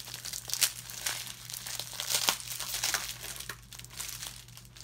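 Taped-up parcel packaging crinkling and crackling as it is handled and pulled open, in irregular bursts with the loudest crackles about half a second in and again around two to three seconds.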